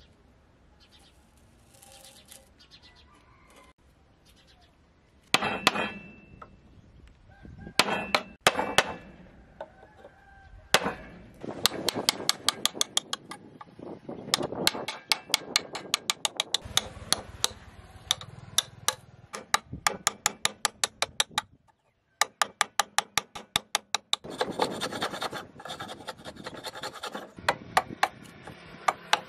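A chisel being struck to cut a thin wooden knife-handle scale: runs of quick sharp taps, several a second, starting about five seconds in and broken by short pauses.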